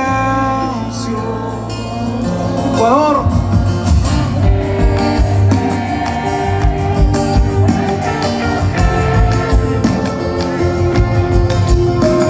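Live pop band playing an instrumental passage, with guitar and a steady drum and bass beat coming in about three seconds in, and a short sung phrase with vibrato at that point.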